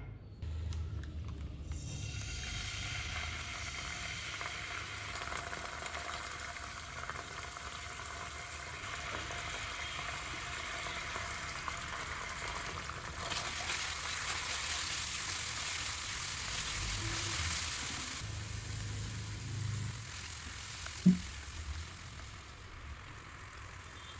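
Food sizzling in hot oil in a pan, a steady hiss that grows louder for a few seconds and then dies down. One sharp knock near the end.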